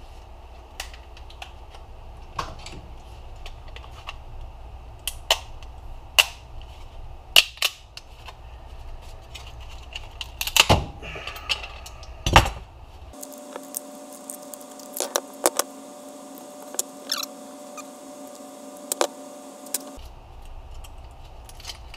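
Plastic laptop battery pack casing being pried apart with pliers: a string of sharp cracks and snaps, the loudest about halfway through, with small clicks of the pliers and parts.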